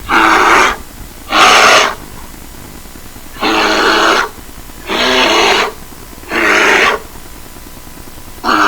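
A bear giving a series of six short, loud, breathy growls, each lasting well under a second, at a slow, even pace.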